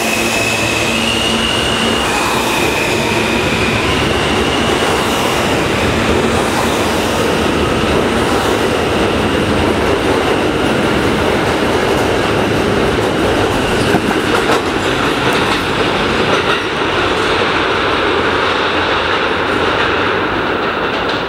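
An R160-series New York City subway train accelerates out of an underground station. Its propulsion gives a high whine that steps up in pitch over the first few seconds, over a steady rumble of wheels on the rails. The higher noise thins in the last few seconds as the train goes into the tunnel.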